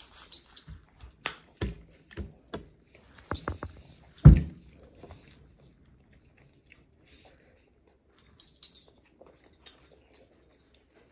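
Close-miked chewing with sharp wet mouth clicks over the first few seconds, and one louder thump about four seconds in. After that there are only faint small ticks, as a drink is sipped and stirred with a straw in a plastic cup.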